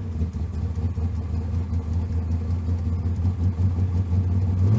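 A car engine running steadily at a constant speed, a loud, low, even drone.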